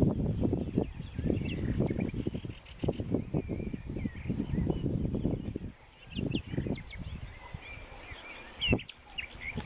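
Crickets chirping in a steady high-pitched pulse, about two chirps a second, with faint short bird calls and an irregular low rumbling noise underneath.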